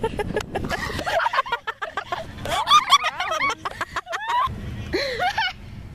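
Girls laughing and squealing, with high wavering shrieks about halfway through.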